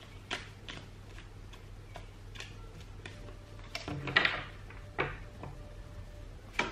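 A deck of tarot cards being shuffled by hand: a run of short, irregular card flicks, with a louder rustle of cards about four seconds in.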